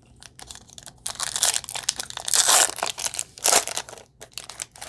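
Foil wrapper of a trading-card pack being torn open and crinkled: a run of irregular crackling rips, loudest around the middle.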